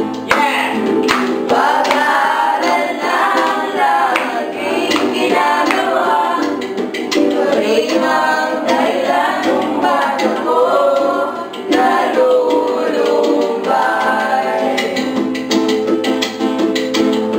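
A group of young voices singing a Tagalog song together, accompanied by a strummed ukulele.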